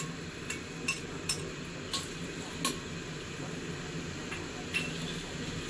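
Scattered light clicks and taps of kitchen utensils against cookware, about six at irregular times, over a low steady hum.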